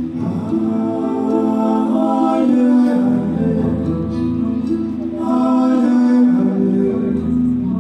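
Music with guitar and a singing voice, in phrases of long held notes.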